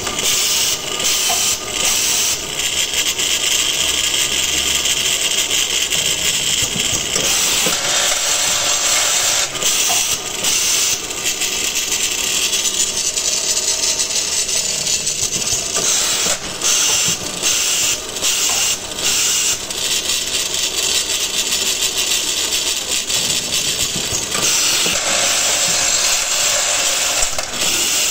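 Automatic drilling-and-tapping machine and its vibratory bowl parts feeder running: steady mechanical noise with a strong hiss, its character changing a few times.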